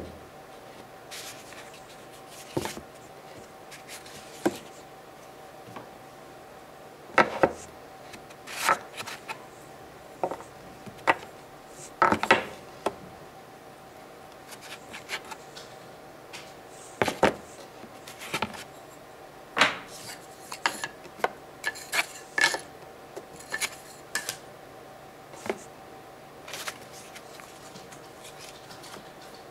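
Irregular knocks, taps and short scrapes of toy blocks being set down, pushed against a cardboard wall and slid across a tabletop, with a hand rubbing over the table surface. A faint steady hum runs underneath.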